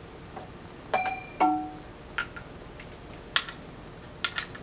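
Steel hand tools being picked up and knocking together while a click-type torque wrench is handled. There are two ringing metal clanks about a second in, then a few short sharp clicks.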